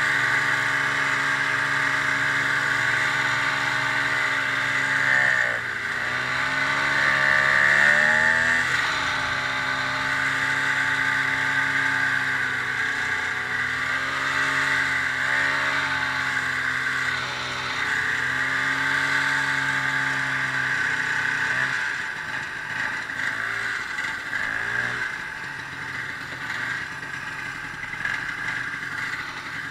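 Ski-Doo snowmobile engine running under way, its pitch dipping and then climbing again as the throttle eases and opens about five seconds in. About twenty-two seconds in, the steady engine tone gives way to a rougher, slightly quieter sound.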